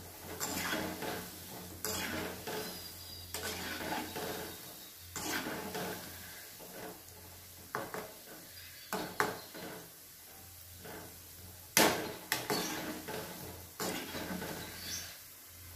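Metal perforated skimmer clinking and scraping against a steel kadai as it turns gulab jamun balls deep-frying in oil, with a faint sizzle of the oil between the strokes. The scrapes come irregularly, a few seconds apart, and the loudest is about three-quarters of the way through.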